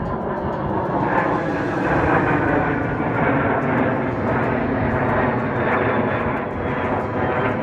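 Jet aircraft flying over, a loud, steady jet-engine rush that swells about a second in and holds.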